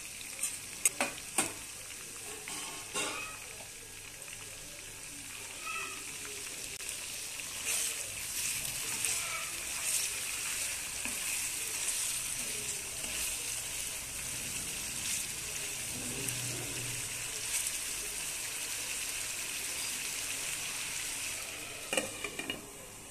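Mutton pieces in thick masala sizzling as they fry in oil in a nonstick wok, stirred with a wooden spatula, with a few sharp knocks in the first second or so. Near the end a glass lid clatters onto the pan.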